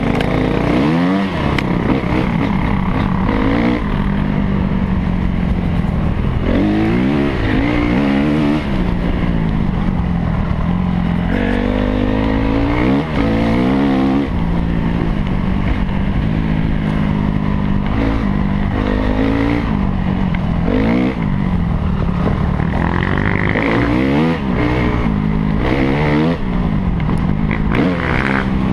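Honda CRF250R single-cylinder four-stroke dirt bike engine under hard riding, its pitch climbing and dropping again every few seconds as the throttle is opened and closed and gears are changed.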